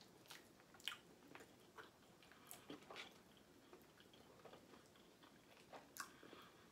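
Faint chewing: soft, irregular mouth clicks and smacks of someone eating.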